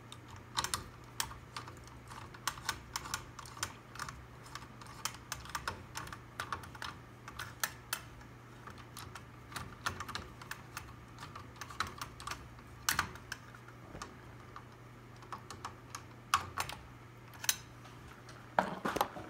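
Irregular small clicks and ticks of a hand screwdriver turning metal screws, fastening a blade bracket to a ceiling fan's motor hub, with a low steady hum underneath.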